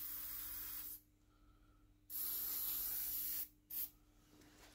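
Aerosol spray can hissing in bursts aimed at a rusty cast-iron bench vice: one spray stops about a second in, a second lasts about a second and a half, then a short final puff.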